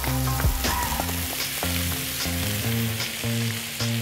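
Fresh baby spinach sizzling in hot olive oil in a frying pan as it goes in and is stirred with a wooden spoon, with a few light clicks. Background music with pitched notes plays underneath.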